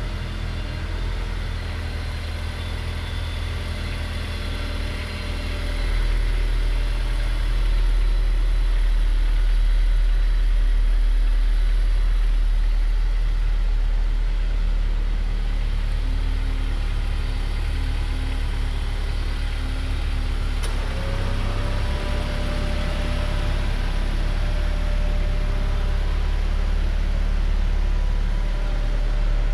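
Honda S2000's 2.2-litre four-cylinder engine idling steadily, a low even hum that gets a little louder about six seconds in.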